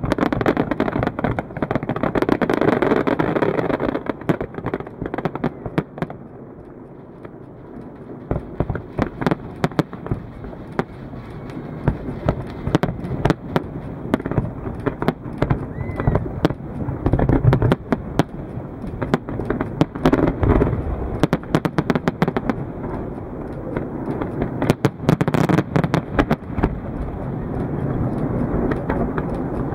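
Aerial fireworks display: a rapid run of sharp bangs from bursting shells over a rumbling background. It thins out briefly about six to eight seconds in, then builds again with many close-spaced reports.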